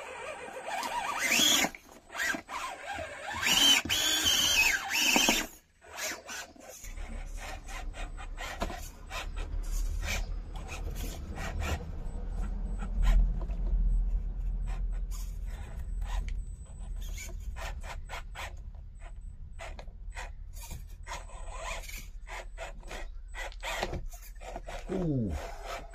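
1:24-scale RC rock crawler climbing rocks. Its small electric motor and gears whine, rising and falling in pitch in the first few seconds, over scraping and clicking of tyres and body on the rocks. After about seven seconds there is steady scrabbling and tapping over a low rumble.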